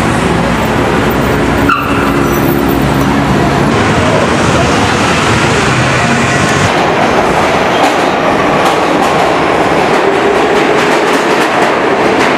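Loud, steady city noise that changes abruptly a few times: street traffic at first, then a New York City subway train running in a station.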